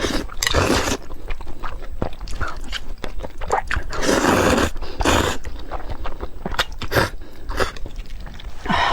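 Close-up eating sounds from sweet potato vermicelli: wet chewing and biting with many small clicks, and three longer noisy bursts, about half a second in, about four seconds in and about five seconds in.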